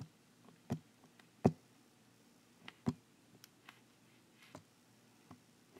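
Light taps and clicks of a finger or stylus on an iPad touchscreen while a page is dragged across it: a handful of separate clicks, the loudest about one and a half seconds in, fainter and sparser toward the end.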